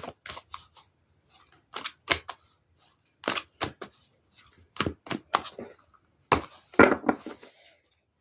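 Tarot cards being handled and laid out on a table: a series of irregular light snaps and taps, with a longer, louder rustle about six to seven seconds in.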